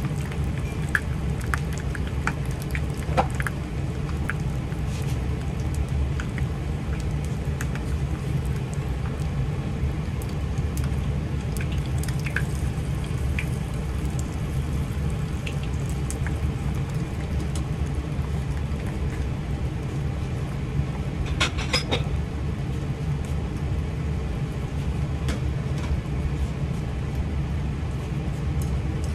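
Spring-roll-wrapper parcel shallow-frying in oil in a frying pan: a steady sizzle with scattered small pops and crackles, over a low steady hum. A short burst of sharper crackles comes about two-thirds of the way through.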